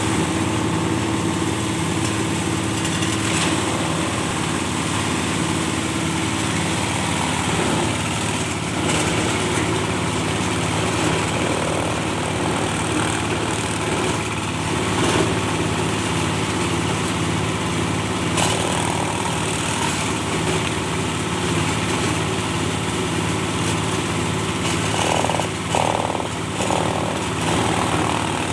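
Cocopeat machine, a coconut husk grinder, running steadily with a constant mechanical drone, with a few brief knocks along the way.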